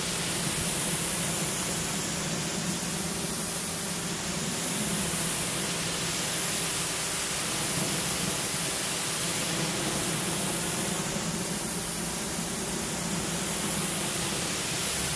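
Pressure washer jet rinsing a vehicle's wall: a steady spray hiss with an even hum underneath.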